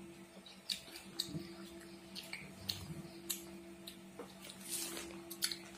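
Faint, scattered wet clicks and slurps of a child sucking a milk drink through a plastic straw from a small bottle, over a steady low hum.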